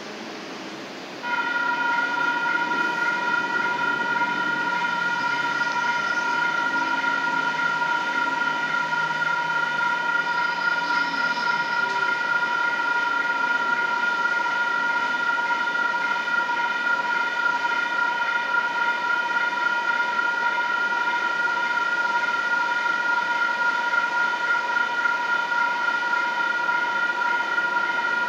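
Railroad crossing's electronic warning bells start about a second in and keep ringing steadily as the crossing activates.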